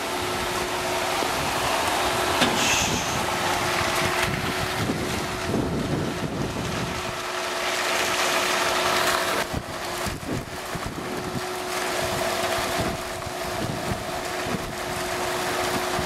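Concrete pump truck's diesel engine running steadily during a wall pour: a constant hum over a broad rush of noise.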